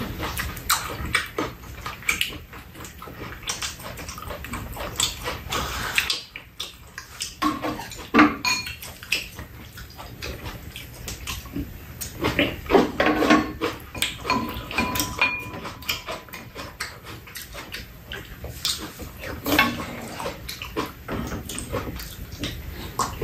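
Two people eating a chicken stir-fry at close range: chopsticks and spoons clicking against bowls and a pan, with chewing and lip-smacking mouth sounds. The clicks come irregularly, thickest about 12 to 14 seconds in.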